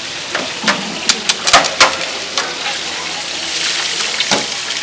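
Metal grill tongs clacking against a metal tray and grill rack: a quick run of sharp clicks in the first two seconds and one more near the end, over a steady sizzling hiss from the charcoal grill.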